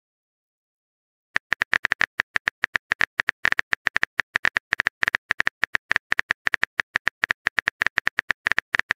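Phone on-screen keyboard key-tap clicks from a texting app, a fast steady run of short sharp taps starting about a second and a half in, as a message is typed letter by letter.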